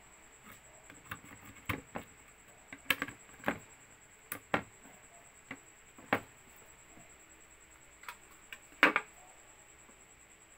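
Several separate sharp plastic clicks and light taps as a RAM module is pushed into a motherboard memory slot and handled, the loudest near the end.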